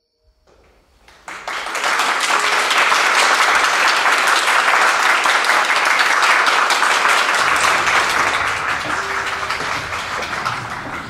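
Audience applauding in a hall: the clapping swells in about a second in, holds steady, and tapers off near the end.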